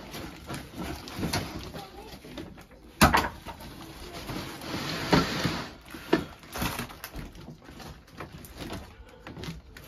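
Long cardboard box holding a metal box spring being handled and tipped: scrapes, rustling and scattered knocks, the loudest a sharp knock about three seconds in.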